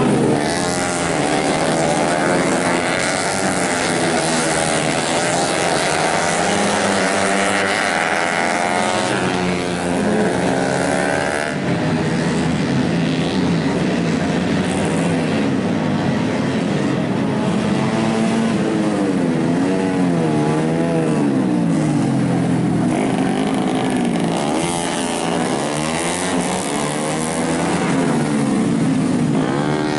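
Several tuned 125cc four-stroke underbone racing motorcycles running hard, their engine notes overlapping and rising and falling as they rev and shift gears.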